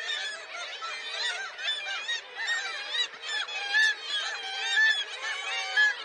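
A seabird colony of black-legged kittiwakes calling, many nasal calls overlapping at once. A few louder calls stand out in the second half.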